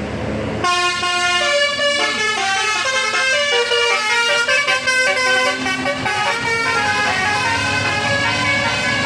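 A tour bus's Basuri multi-tone telolet air horn plays a tune of quickly changing notes, starting about a second in and running on, over the bus's engine.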